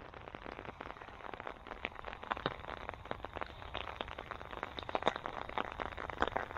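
Heavy rain falling, with many irregular drops tapping sharply close by over a steady patter.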